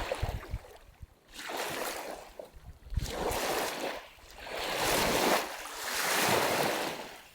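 Outdoor rushing noise that swells and fades in waves every second or two, with low rumbles of wind buffeting the microphone.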